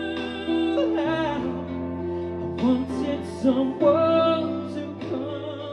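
A man singing into a handheld microphone over instrumental backing music, holding long notes.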